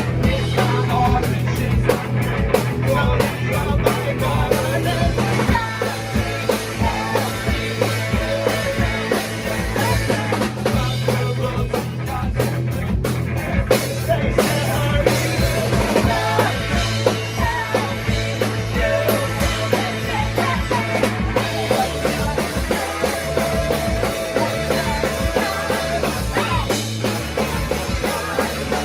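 Live punk rock band playing: distorted electric guitars, bass and a driving drum kit, with some singing.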